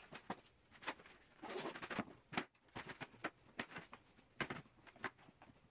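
Faint rustling of clothing with scattered soft clicks and taps as undergarments are stuffed by hand into an open hard-shell suitcase.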